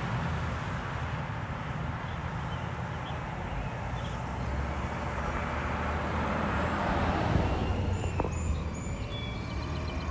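Garbage truck's diesel engine running as it approaches, a steady low hum, with a pickup truck driving past close by and its tyre noise swelling about six seconds in.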